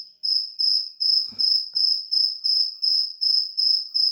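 A cricket chirping steadily, a high-pitched chirp repeated about three times a second. A faint knock sounds about a second and a half in.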